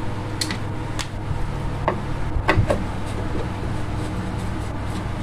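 A screwdriver clicking and tapping against the metal fan motor and its mounting screws in an air cooler, several short sharp knocks in the first few seconds, over a steady low hum.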